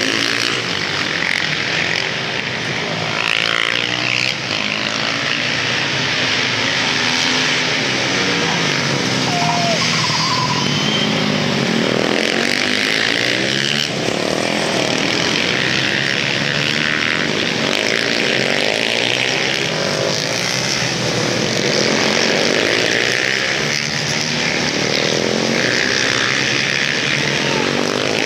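Several supermoto motorcycle engines racing around a circuit, revving up and falling back as the bikes pass, with many rising and falling pitches overlapping.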